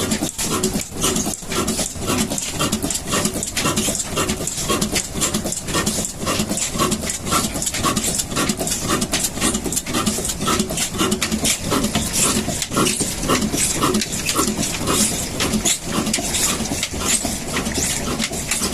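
Pak Asia 18 HP stationary diesel engine running steadily, its exhaust and combustion beats coming as an even, rapid knocking rhythm.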